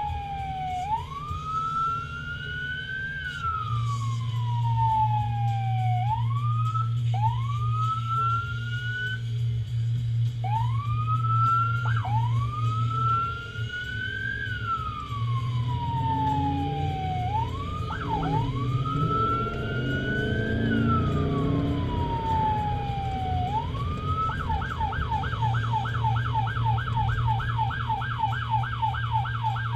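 Emergency vehicle siren heard from inside the responding vehicle, in a slow wail that rises and falls, broken several times by quick rising sweeps. Near the end it switches to a fast yelp of about four cycles a second. A steady low engine and road hum runs underneath.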